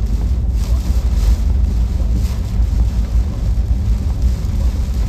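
Ford F-150 pickup driving slowly, heard from inside the cab as a loud, steady low rumble of engine and road noise.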